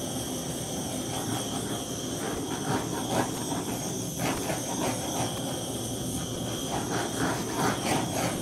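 Handheld butane torch burning with a steady hiss as the flame is swept over wet acrylic paint to pop air bubbles.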